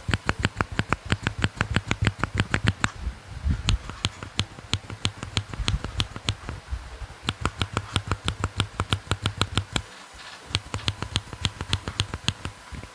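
Fast typing on a mechanical keyboard fitted with transparent ABS keycaps: a steady stream of sharp key clacks, about six or seven a second, with a brief pause near the end.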